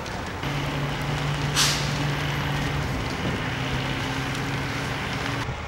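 Fire engine's motor running with a steady low drone over the rushing noise of the fire and hose streams, a short sharp hiss about a second and a half in; the sound cuts off suddenly near the end.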